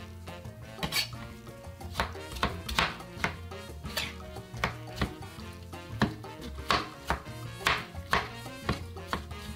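Chef's knife chopping tomato on a plastic cutting board: sharp, irregular knocks of the blade on the board, about two a second, over background music.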